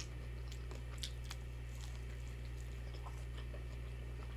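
A person chewing battered onion rings, with wet mouth noises and a couple of faint crisp crunches about a second in, over a steady low hum.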